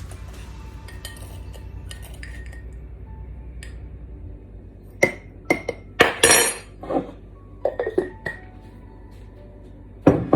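A tablespoon clinking and tapping against a mug as sugar is spooned in: a quick run of sharp clinks about halfway through, some ringing briefly, and one more near the end.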